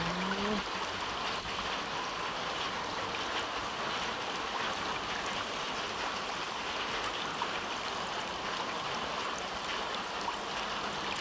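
Rainwater flooding across a road, rushing steadily over the surface.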